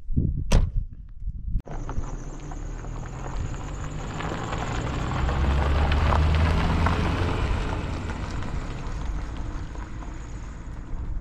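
Peugeot 405 sedan driving past on a gravel road: engine hum and tyres crunching on gravel grow louder, are loudest about six seconds in as it passes, then fade as it moves away. A few sharp knocks come in the first second and a half.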